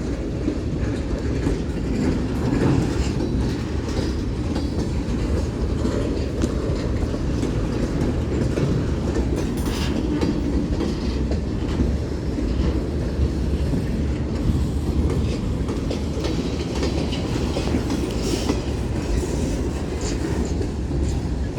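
Freight cars of a Union Pacific manifest train rolling past: a steady rumble with the wheels clicking over the rail joints.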